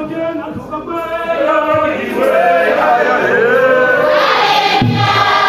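A congregation singing together, many voices at once, growing fuller and louder about two seconds in.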